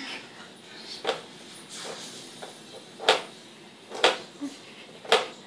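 Refrigerator door being opened and knocked shut over and over by a small child, four sharp clunks spaced one to two seconds apart.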